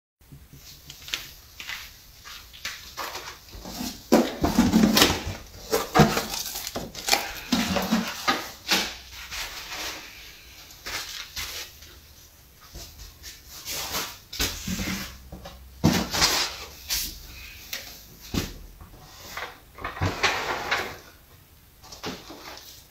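Packaging being opened by hand: cardboard box flaps scraping and flapping, a wooden crate lid knocking, and scattered clatters and rustles of packing, with plastic bags crinkling near the end.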